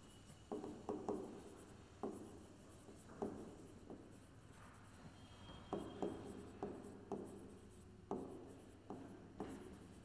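Stylus writing by hand on an interactive smart-board screen: faint, irregular taps and short strokes as each letter is put down.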